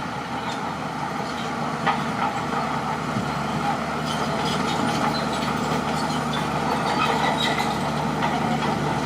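Crawler bulldozer's diesel engine running steadily, with scattered metallic clinks and short high squeaks from the tracks, growing slowly louder; a sharp clank about two seconds in.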